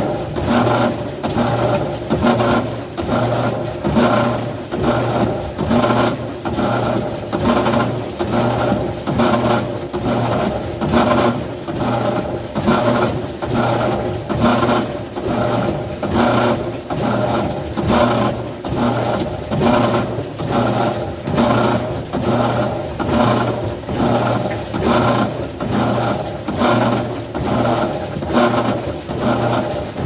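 GE top-load washing machine's motor and transmission running under test with a newly fitted shift actuator, a steady mechanical sound that pulses evenly a little more than once a second.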